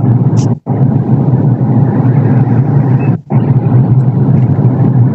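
Loud, steady rumbling noise carried over a phone video call, cutting out abruptly twice for a split second.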